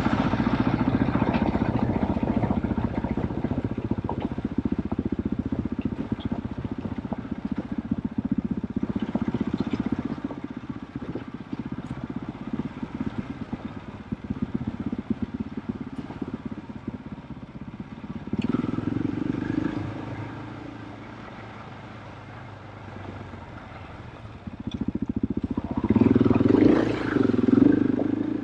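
KTM off-road motorcycle engine being ridden, running hard at first, then easing off, with the revs rising briefly about two-thirds of the way through and strongly again near the end.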